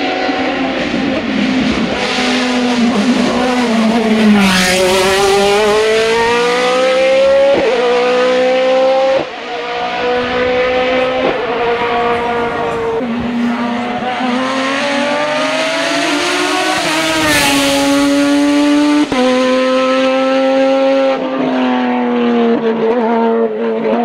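Hill-climb racing car engines revving hard under full throttle. The engine note climbs steadily and then drops sharply at each gear change, several times over.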